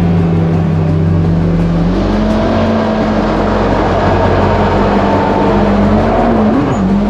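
Supercharged Yamaha GP1800R SVHO jet ski engine running at steady throttle. Its pitch steps up about two seconds in and wavers briefly near the end.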